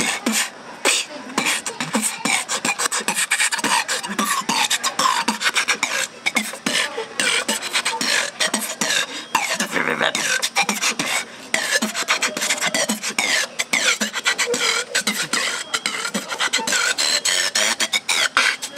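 A person making rapid beatbox-style mouth sounds: dense clicks and pops mixed with sliding, whistle-like pitches that rise and fall, a vocal imitation of riding sounds.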